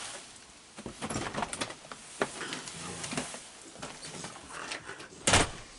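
Scattered light clicks and rattles of dry dog food being handled and put out, with one louder rustle about five seconds in.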